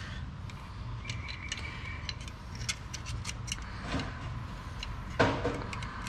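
Light metal clicks and clinks of a steel pick probing inside a Ford F-150's automatic 4x4 locking hub, searching for a retaining pin, with a louder clatter about five seconds in.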